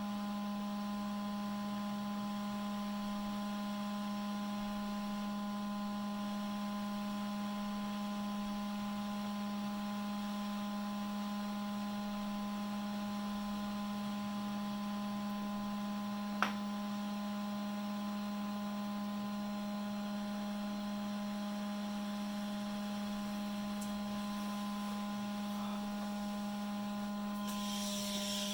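Steady electrical hum with one low tone and a few fainter higher tones, unchanging throughout. A single sharp click comes a little past halfway, and a hiss starts near the end.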